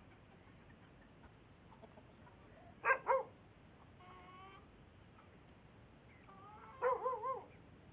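Chickens squawking in short, loud calls: a quick pair about three seconds in, a fainter call a second later, and a wavering run of calls near the end.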